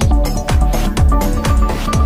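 Electronic background music with a fast, steady kick-drum beat, about two and a half beats a second, under held synth notes.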